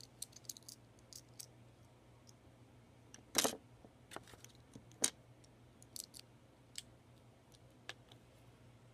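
Loose plastic Lego bricks clicking and clattering as a hand rummages through and picks up pieces on a wooden tabletop, in scattered small clicks with a louder rattle about three and a half seconds in.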